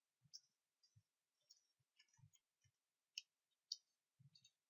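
Faint, irregular clicks of a computer keyboard being typed on, with two somewhat louder clicks a little past the middle.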